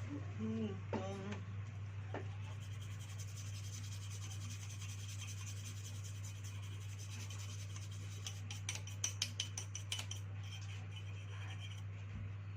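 Light rubbing and scraping from hands working on a dive torch's battery pack, with a cluster of sharp clicks and scrapes about two thirds of the way in, over a steady low electrical hum.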